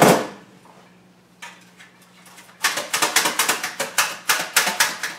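Quick, sharp taps, about four or five a second, starting about two and a half seconds in: parts of a Behmor 1600 Plus coffee roaster being knocked to shake out the chaff after a roast. A loud rattle fades out at the very start.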